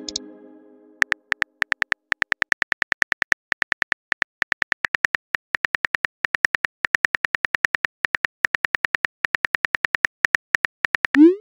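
Rapid clicking of a phone keyboard's key-click sound as a text message is typed out, several taps a second in irregular runs. A plucked message tone fades out at the start, and a rising whoosh comes near the end.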